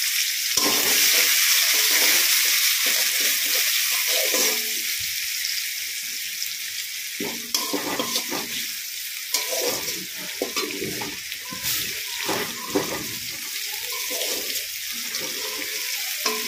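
Chopped onions sizzling in hot mustard oil in a kadai, with a steady hiss, while a spatula stirs them, scraping and knocking against the pan at irregular intervals.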